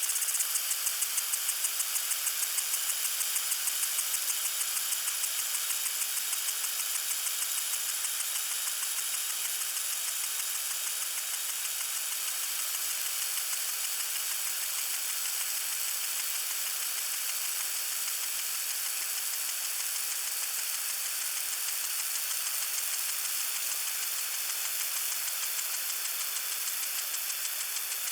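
Lawn sprinkler spraying water: a steady, bright hiss with a fast, even pulse running through it.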